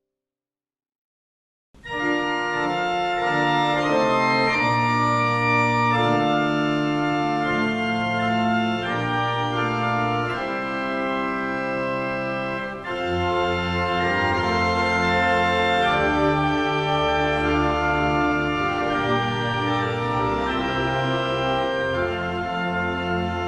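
Organ playing slow, sustained chords. It starts after nearly two seconds of dead silence, with a brief dip about halfway through.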